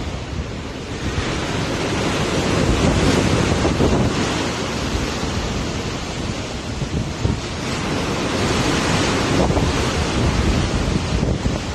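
Rough sea water rushing and splashing alongside a moving boat, with wind buffeting the microphone as a low rumble. The rush swells and eases in surges, strongest about a second in, again around three to four seconds and near eight to ten seconds.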